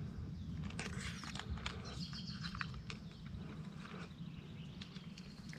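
Quiet outdoor ambience: a few short bird chirps and scattered soft clicks over a steady low rumble.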